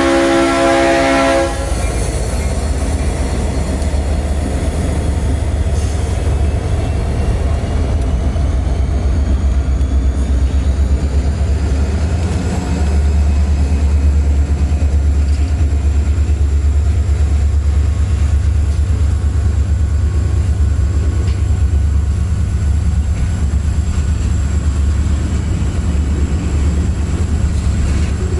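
A diesel locomotive's multi-chime horn sounds a chord that cuts off about a second and a half in. Then a freight train's diesel locomotives run past with a steady low rumble, which gets louder about halfway through.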